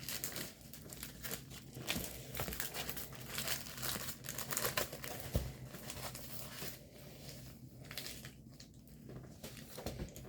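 Plastic packaging crinkling and rustling as it is handled and unwrapped, with some tearing.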